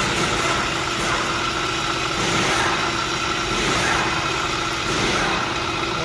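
Honda Pilot V6 engine idling, its serpentine belt and pulleys running with a steady high tone over the engine hum. The pulley noise is traced to the automatic belt tensioner.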